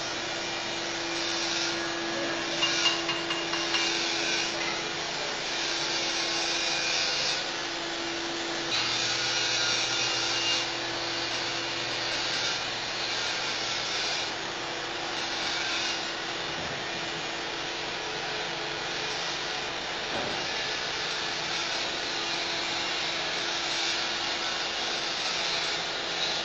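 Stick (SMAW) welding arc on carbon steel pipe, a steady crackling sizzle with a few sharper pops about three seconds in and a steady low hum underneath.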